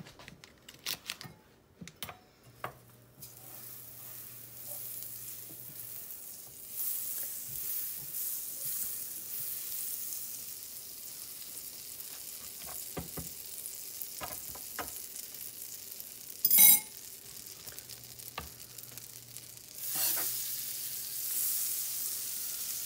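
A tablespoon of butter sizzling as it melts and foams in a hot skillet, the hiss building after a few quiet clicks at the start. There is one sharp knock about two-thirds of the way through, and the sizzle grows louder near the end as the butter is stirred around the pan.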